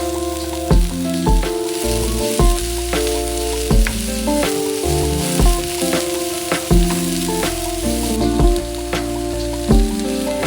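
Noodles frying in a pan with a steady sizzle, under background music with bass notes and regular drum hits.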